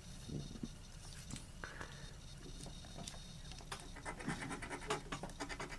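Scratch-off lottery ticket being scratched: faint, quick rasping strokes across the card's coating, which grow denser and louder in the last couple of seconds.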